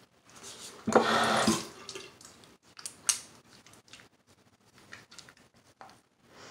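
Water splashing at a bathroom sink for about a second as wet hands move in it, followed by faint scattered drips and the rubbing of wet hands on a soapy face.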